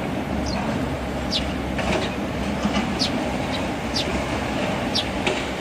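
A steady low mechanical rumble with a hiss over it, and short high falling chirps recurring about once a second.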